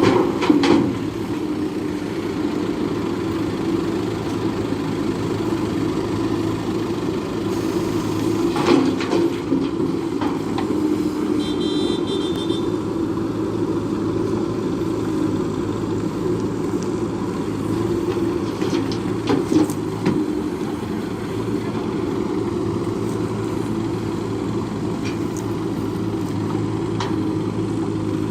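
Diesel engine of a JCB backhoe loader running steadily under work, with a few clanks and knocks from the machine as it digs and loads mud into a dump truck.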